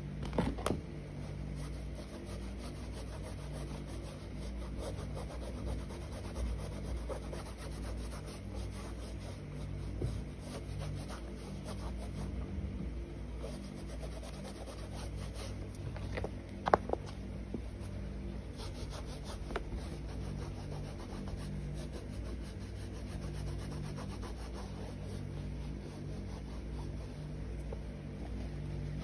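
A sneaker-cleaning wet wipe scrubbing a sneaker by hand: continuous rubbing strokes, with a couple of sharper knocks as the shoe is handled, about half a second in and again about two-thirds of the way through.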